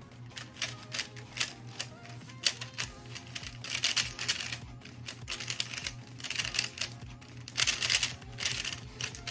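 Rapid clacking of a loose, non-magnetic 3x3 speed cube being turned fast during a timed solve, the clicks coming in quick runs, over background music.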